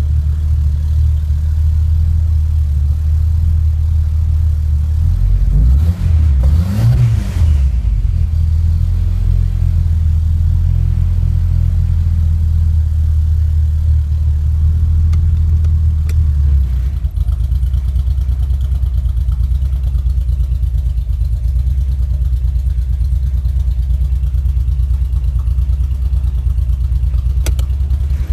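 2.3-litre turbocharged engine running with a misfire. It is blipped once, rising and falling about six seconds in, and its note changes about seventeen seconds in.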